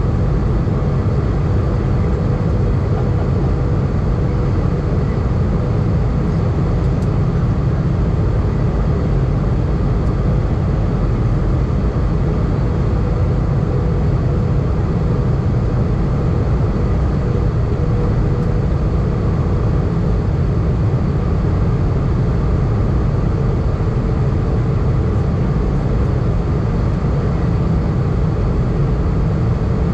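Steady cabin noise of an Airbus A320 airliner in flight: a constant deep rumble of engines and airflow with a faint steady hum above it.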